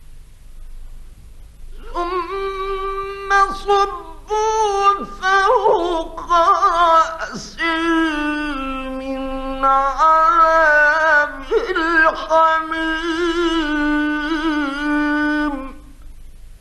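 A man's solo voice chanting Qur'an recitation in the melodic mujawwad style, from an old 1950s recording. The phrase starts about two seconds in and is drawn out for about fourteen seconds in long held notes with ornamented, wavering pitch.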